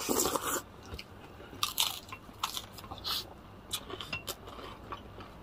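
Crunching bites and chewing of crispy fried chicken, close to the microphone: a quick cluster of crunches at the start, then single crunches every half second or so.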